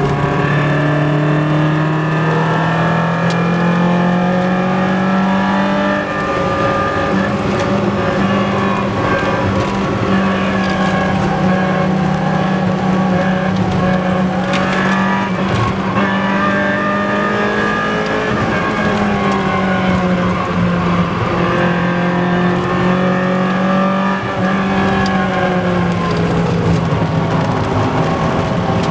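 BMW M3 E30's four-cylinder engine running flat out at high revs. Its note climbs over the first few seconds, then holds high with a few brief dips.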